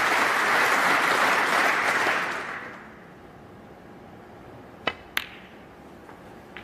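Audience applause dying away over the first two to three seconds, then quiet. About five seconds in come two sharp snooker ball clicks a third of a second apart: the cue striking the cue ball, then the cue ball hitting the yellow.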